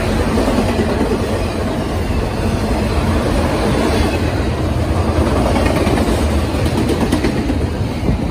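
Norfolk Southern freight train rolling past, a steady loud rumble of wheels on the rails.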